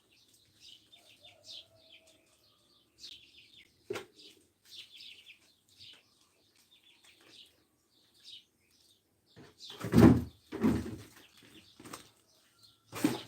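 Small birds chirping in quick short notes, with a few loud rustling bursts about ten seconds in and again near the end.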